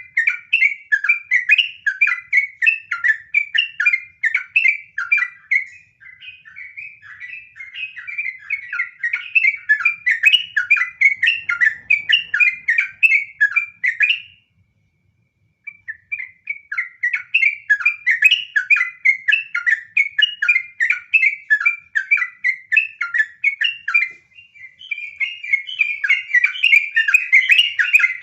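Yellow-vented bulbul (trucukan) singing a long, fast, unbroken run of short chattering notes. The song breaks off once for about a second and a half near the middle, then resumes just as fast.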